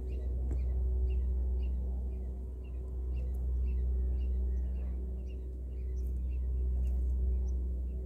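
Faint, quick chirps of small birds, several a second, over a steady low hum.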